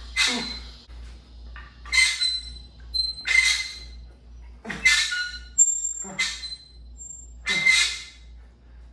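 Sharp breaths and grunts of effort, one with each barbell curl rep, six of them about a second and a half apart, with a light metallic clink from the weight plates on the bar.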